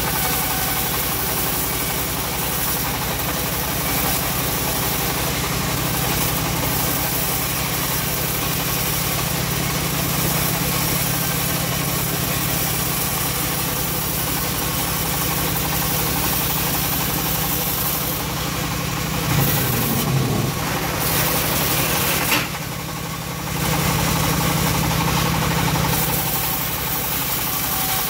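Homemade engine-driven bandsaw mill running steadily while its blade rips a teak beam lengthwise, the engine's drone and the blade's cutting noise continuous. The sound rises a little briefly a few seconds before a short dip about three-quarters of the way through, then carries on.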